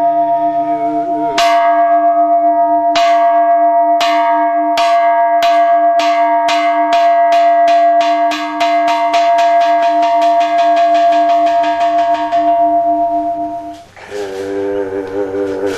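A small Buddhist temple bell is struck with a mallet, its ringing sustained throughout. The strokes start about two seconds apart and quicken into a fast roll before stopping. This is the bell call for the evening service. Near the end a voice starts chanting.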